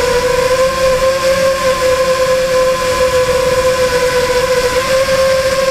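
Electric motor and propeller whine of an FPV model aircraft, picked up close by its onboard camera: a loud, steady high-pitched drone that wavers slightly in pitch as the throttle shifts, over a constant rush of air.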